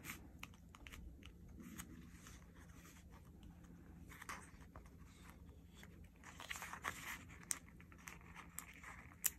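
Faint crinkling of a paper sticker sheet and small ticks of metal tweezers as planner stickers are picked at and peeled off the sheet, with a sharp click near the end.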